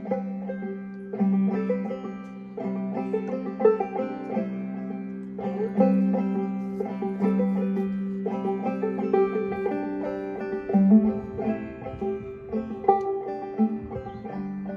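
Clawhammer banjo being played: a rhythmic stream of plucked notes over a steady, low ringing note that holds throughout.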